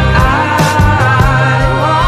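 Background song: a sung melody over a steady bass line and drum hits.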